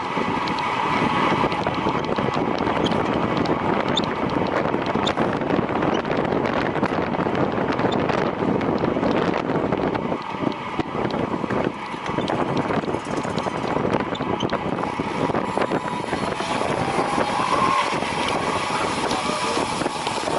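Steady rush of wind on a body-worn camera's microphone at racing speed, with faint rolling and whirring from the racer's own wheels.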